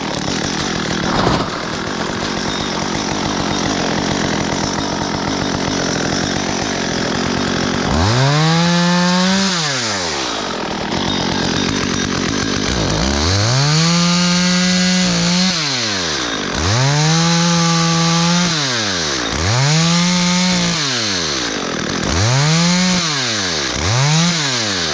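STIHL MS 194 T top-handle chainsaw's single-cylinder two-stroke engine running at low speed for several seconds, then revved to high throttle and let off about six times. Each rev climbs, holds briefly and falls back.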